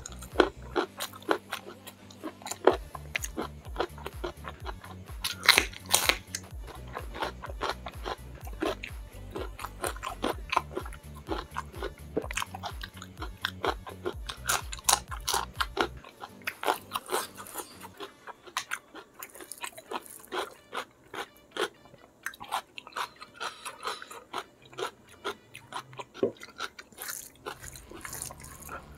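Close-miked mukbang eating: chewing with repeated crisp crunching bites and wet mouth clicks as a person eats spicy fish-head curry with raw green chili and other raw vegetables by hand. A low background music beat runs underneath and stops about halfway through.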